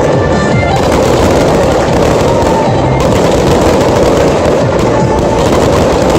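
Aerial fireworks display in a dense, continuous barrage of bursts and crackling, loud and steady throughout, with music playing alongside.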